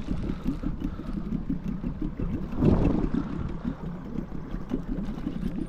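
Boat's outboard motor running steadily at low speed, with a louder rushing swell a little before the middle.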